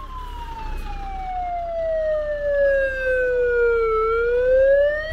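Fire truck siren wailing: one long tone sliding slowly down in pitch for about four seconds, then starting to rise again near the end.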